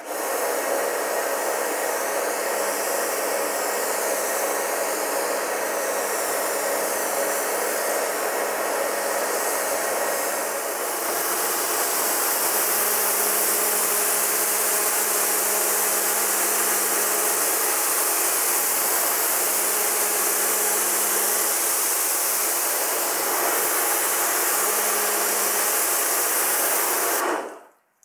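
Pressure washer running: a steady motor hum under the hiss of the water jet spraying onto car paintwork. The hiss gets brighter about eleven seconds in, and it all stops abruptly just before the end.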